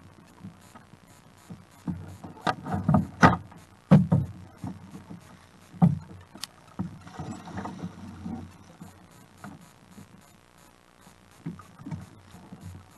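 Hollow knocks and clunks on a Hobie Outback's plastic hull as the rudder is deployed, mostly between about two and six seconds in, with a few fainter ones near the end. Underneath runs a steady low rush of wind and water on the kayak.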